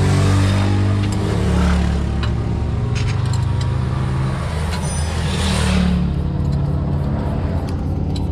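Mitsubishi Fuso truck's diesel engine running, its pitch shifting slightly up and down, with a brief hiss about five seconds in and a few light clicks.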